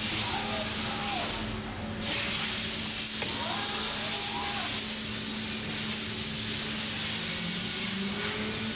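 MultiCam 5000 Series CNC router running: a steady hiss with a constant hum, and motor whines that swing up and down in pitch twice, then a whine climbing steadily in pitch near the end.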